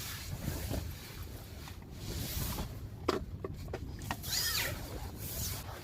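Rustling and handling noise over steady wind, with a few sharp knocks a little past three seconds in and a short squeak that rises and falls near the end.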